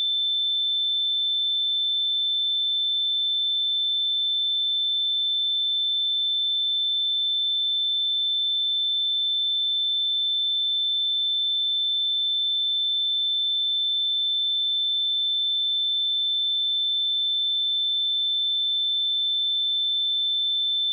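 A steady, unchanging pure sine tone at 3538 Hz, a high-pitched test tone for checking speakers or headphones.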